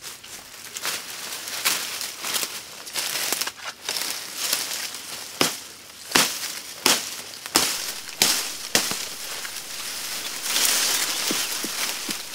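A person pushing through dense forest undergrowth: leaves and brush rustling and crunching underfoot, with a run of sharp snaps about once every two-thirds of a second between about five and nine seconds in.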